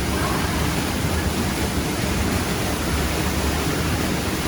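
Steady, even rush of a waterfall, falling water making a constant full noise without any break.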